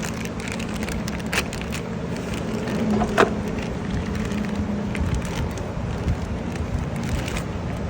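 A steady low mechanical hum, with a few light clicks and knocks from car parts being handled.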